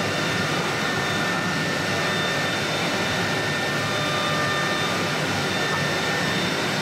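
CNC wood router's spindle running at speed and cutting a groove into a wooden door panel: a steady hiss with a steady high whine, unbroken throughout.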